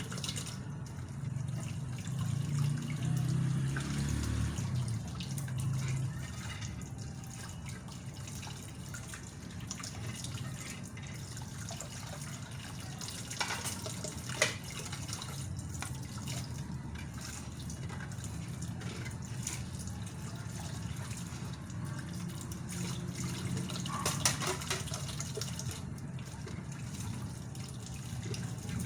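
Tap water running and splashing in a kitchen sink during dishwashing, heavier in the first few seconds. A couple of sharp knocks, one about halfway through and another near 24 seconds.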